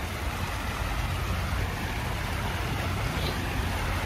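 Steady low outdoor rumble with an even hiss above it, such as wind and distant traffic give on a phone microphone.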